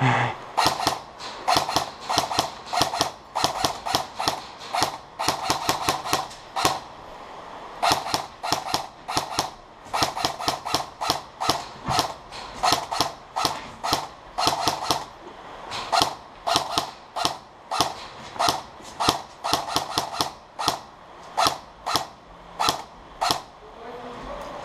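Airsoft electric gun (AEG) firing a long string of rapid single shots, about two sharp snaps a second, with a few short pauses along the way.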